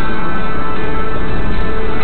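Loud music with long held notes.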